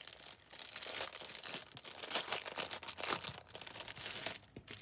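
Plastic packaging bag crinkling and rustling in the hands as it is worked open, a quick, irregular run of crackles.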